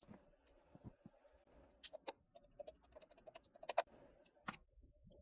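Faint, irregular light clicks and ticks of small hardware being handled, as when fitting an M.2 Wi-Fi card and its screw onto a motherboard, over a very faint steady hum.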